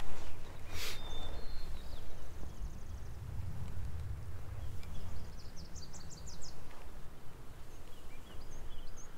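Low wind noise on the microphone, with a sharp click about a second in and a quick run of ticks about six seconds in; faint bird chirps near the end.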